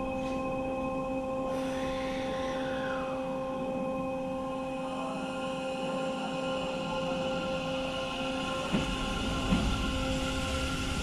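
Hanshin electric train at the station platform, giving off a steady whine of several even tones, with a brief falling glide about 2 seconds in. From the middle on, running noise builds up, and a few low knocks come near the end.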